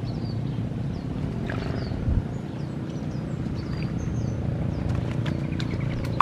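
A steady low rumble with a faint steady hum, with short high bird chirps now and then and a few light clicks near the end.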